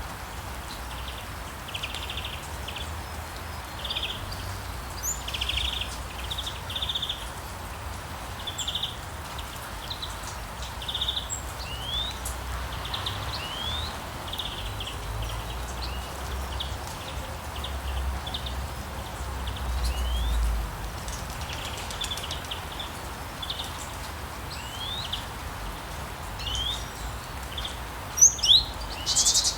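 Birds chirping and trilling over the steady hiss of rain: many short calls and quick upward-sweeping notes, with a few louder, sharper chirps near the end.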